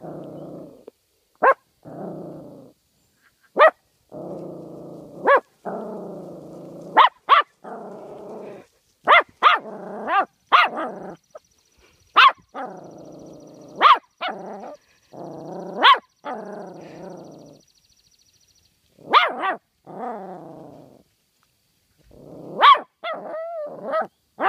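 Pomeranian barking and growling in anger: short sharp barks every second or two, with long growls between them.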